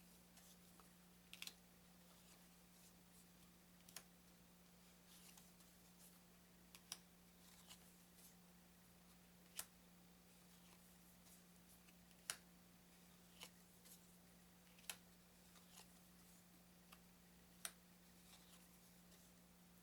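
Faint, sharp clicks of thin playing cards being handled and laid down one at a time, about one every second or two, over a steady low hum.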